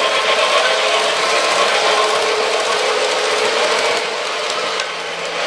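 O gauge model freight train rolling past on a curve: a steady clatter of metal wheels on three-rail track, getting a little quieter about four seconds in.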